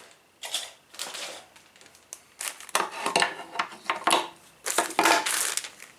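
Plastic model-kit parts trees being handled, clattering and rustling in a run of short, irregular clacks and crinkles that grow busier about halfway through.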